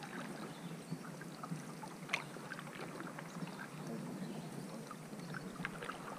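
A canoe being paddled: soft splashes and trickling water from the paddle strokes, with scattered small drips and one sharper splash about two seconds in.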